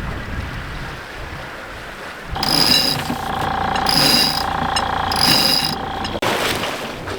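A mechanism starts suddenly a couple of seconds in with a steady whine and a high ratcheting sound that pulses about once a second, three times. It stops sharply about a second before the end. Before it there is only wind and water noise.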